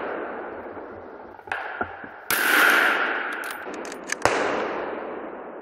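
Rifle shots echoing through the forest at a running wild boar. A fainter report comes about a second and a half in, then two loud ones about two seconds apart, each trailing off in a long echo.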